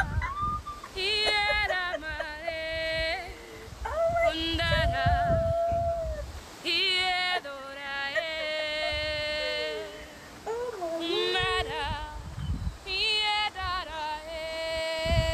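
A woman's voice singing a slow, unaccompanied melody in short phrases of long held notes, some with wavering ornaments and sliding pitch.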